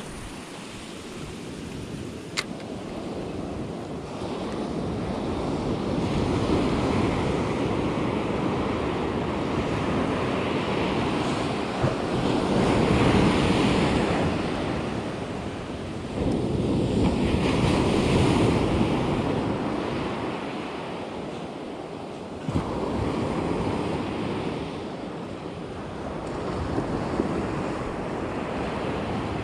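Ocean surf breaking and washing up a sandy beach, swelling and fading every five seconds or so, with wind on the microphone.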